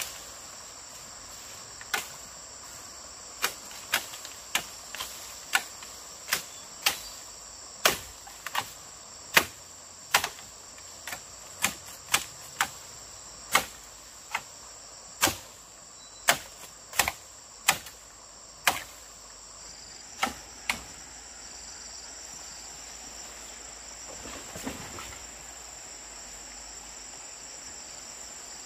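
A series of about twenty-five sharp knocks, irregular, roughly one a second, stopping about two-thirds of the way through, over a steady high chirring of crickets or similar insects.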